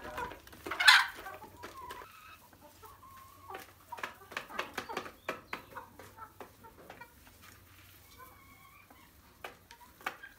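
Vietnamese black-boned (gà ác) hens clucking in short, scattered calls, with one loud sharp burst about a second in and light clicks and knocks throughout.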